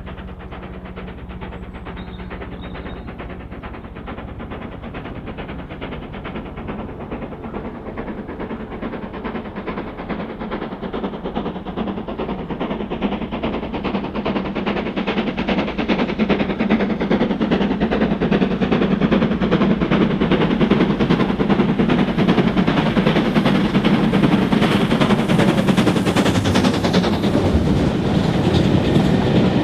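Steam locomotive approaching at speed with its train, its rapid exhaust beats growing steadily louder, and a sound falling in pitch about 26 seconds in as it draws level.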